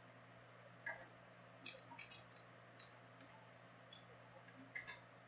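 Faint, scattered clicks of computer keyboard keys as a name is typed, over a low steady hum.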